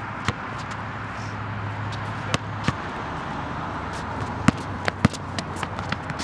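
A basketball bouncing on a hard outdoor court: a scattered handful of sharp single thuds, the loudest two about four and a half and five seconds in, over a steady background hum.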